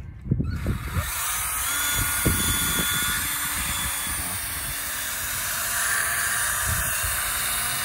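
Cordless drill spinning a foam buffing pad against a plastic headlight lens, buffing in plastic polish as the last step of a headlight restoration. After a few handling knocks it starts about a second in and runs steadily, a whir with a hiss from the pad on the lens.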